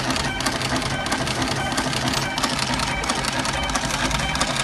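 Fully automatic computer wire-stripping machine running, feeding and cutting wire with a fast, steady mechanical clatter. Music plays alongside.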